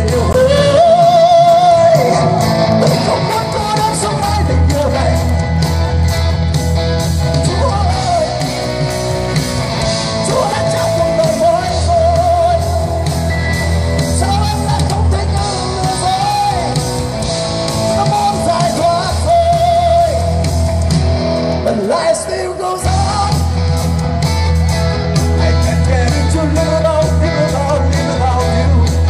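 Live rock band playing through a PA, a singer carrying the melody over electric guitars, bass and drums, heard from within the audience.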